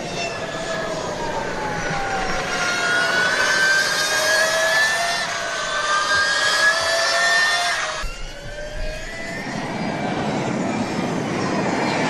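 Electric motorbike's motor whining high, its pitch sliding down and up as the bike slows and speeds up. The sound changes abruptly about eight seconds in, then climbs again.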